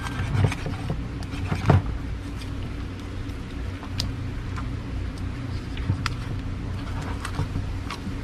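Knife working through a triggerfish's tough skin and flesh on a cutting board: scattered sharp clicks and scrapes over a steady low hum.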